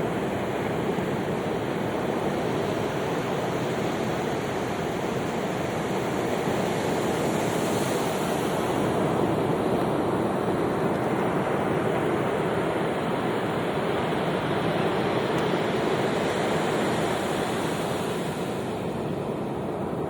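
Ocean surf washing continuously onto a sandy beach, a steady rush with two slow swells of hiss as waves break, about eight seconds in and again near the end.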